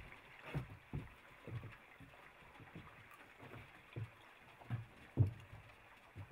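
Footsteps on a wooden dock: irregular dull thumps about every half second over a faint background hiss.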